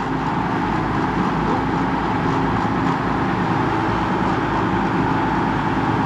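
Steady drone of a trolling fishing boat's engine under a constant rush of wind and churning wake water.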